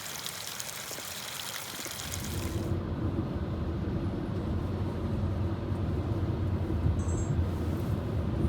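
Spring water pouring and splashing as a steady hiss for the first two and a half seconds. It cuts off abruptly to a car's steady low road rumble heard from inside the cabin.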